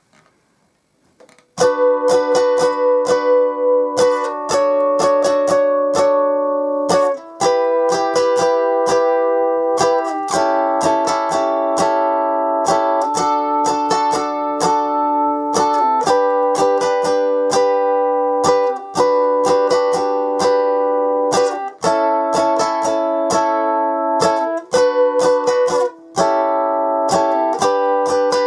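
Ukulele strummed in a 6/8 pattern that includes sixteenth-note strums, moving through a series of chord changes. The playing starts about a second and a half in and then runs on steadily.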